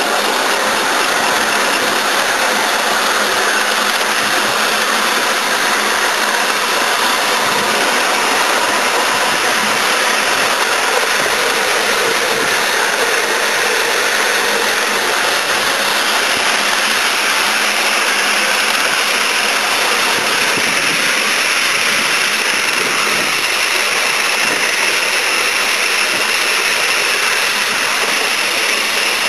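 Live-steam model Peppercorn A1 Pacific locomotive giving off a steady, even hiss of steam.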